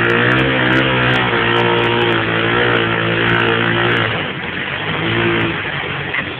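Quad bike engine held at high revs while its stuck rear wheel spins in loose dirt, digging itself in. The revs drop about four seconds in, pick up briefly, then fall away near the end.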